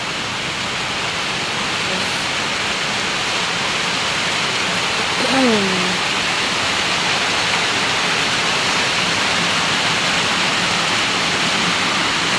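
Heavy rain pouring down in a loud, steady hiss. About five seconds in comes one short call that falls in pitch.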